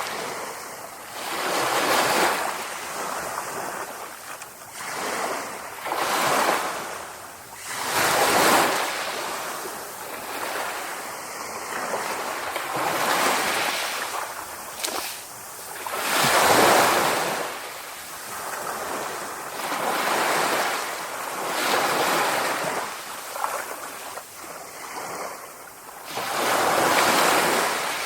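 Sea waves breaking, the surf swelling and ebbing in repeated surges every few seconds, with the loudest surge about halfway through.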